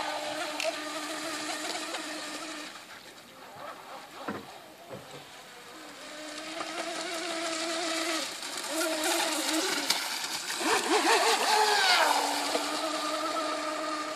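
Mini RC speedboat's electric motor whining at a steady high pitch, with the hiss of spray off the hull. The whine drops away for a few seconds early on, comes back in short bursts of throttle, and near the end swoops down in pitch before settling into a steady whine again.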